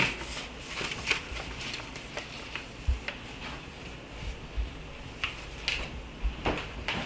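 Scattered light taps, clicks and rustles from handling a metal snake hook and plastic tubs.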